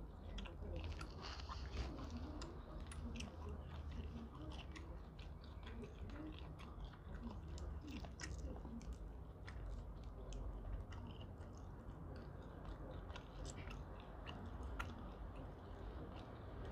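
A person chewing steamed prawns close to a clip-on microphone, with irregular small clicks and crackles from prawn shells being peeled by hand.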